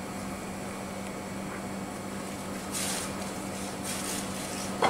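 Quiet room tone with a steady low hum. Two brief soft rustles come about three and four seconds in, and a short tap just before the end.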